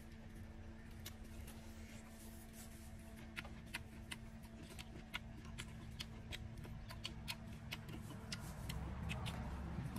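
Irregular sharp clicks and crackles from fingers tearing and mouths chewing grilled pig head, several a second, over a faint steady hum.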